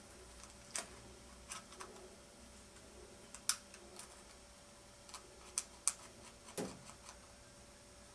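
Small, irregular plastic clicks and taps as a black plastic camera adapter is handled and fitted onto the lens of a compact digital camera, about ten clicks in all, with one duller knock about two-thirds of the way through.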